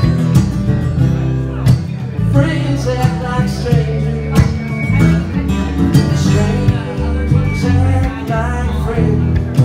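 Live solo acoustic guitar, strummed in a steady rhythm, with a man singing over it in a country-style song; the voice comes in about two seconds in.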